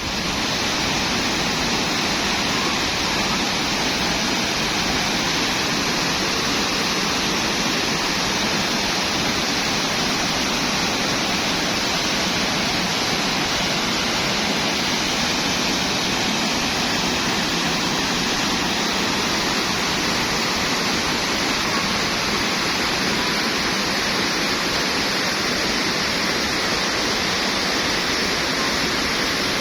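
Waterfall: water pouring and rushing in a steady, unbroken noise that does not change.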